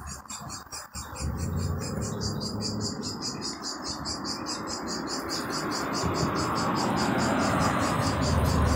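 Insects chirping in a fast, even pulse, about seven pulses a second. Behind them a background rush of noise swells louder from about six seconds in.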